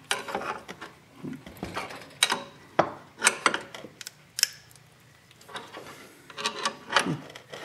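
Wrench on the bolts of a crankcase splitter being tightened to pull apart the Maico 500's crankcase halves: a run of sharp metallic clicks and clinks, a pause about halfway, then more clicks.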